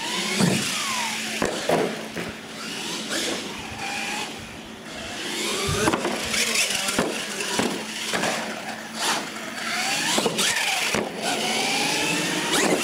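Radio-controlled monster trucks' electric motors whining, the pitch sliding up and down as they speed up and slow. Sharp thuds and clatters come about nine times as the trucks land jumps and tumble on the wooden ramps and concrete floor.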